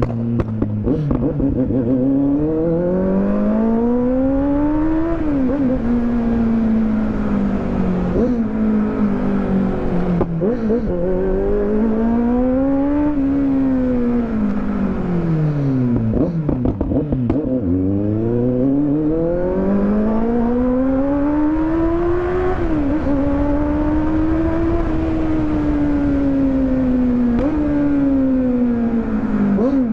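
Kawasaki motorcycle engine and exhaust running loud under hard riding: the revs climb with short dips at each upshift, then fall away as the throttle closes, over and over. About halfway through the pitch drops low, then pulls up again.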